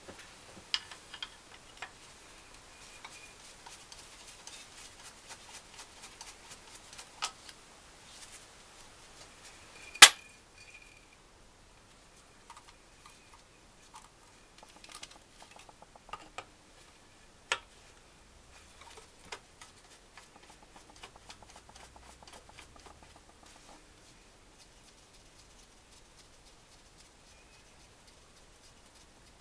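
Light metallic clicks, taps and handling noises from hands working on a motorcycle engine's ignition plate and its wiring. There is a sharp, loud click about ten seconds in and another at about seventeen seconds, with scattered lighter ticks between and after.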